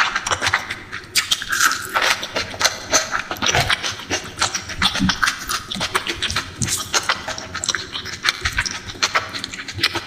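Close-miked eating: wet chewing and lip-smacking on rice and fish curry, a dense, irregular run of sharp clicks.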